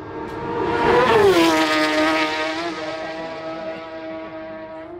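Senior TT superbike passing flat out: its engine note peaks about a second in and drops sharply in pitch as it goes by, then fades as it goes away, still at high revs.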